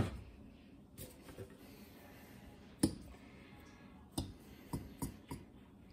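Metal fork clicking against a glass mixing bowl while stirring a crumbly flour-and-butter pie-crust mixture: a handful of scattered light clicks, the loudest about three seconds in.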